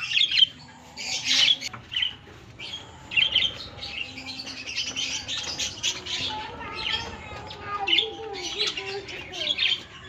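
A flock of budgerigars and other small parrots chattering and chirping, with many short, high calls overlapping without a break.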